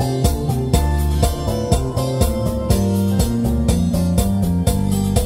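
Instrumental music with keyboard and guitar over a steady beat, played through the repaired E&W LS 3602 power amplifier as a channel and sound-quality test.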